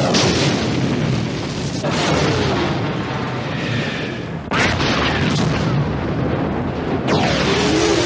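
Movie explosion sound effects, one after another: a blast is already rolling at the start, and fresh booms hit about two, four and a half and seven seconds in, each dying away slowly.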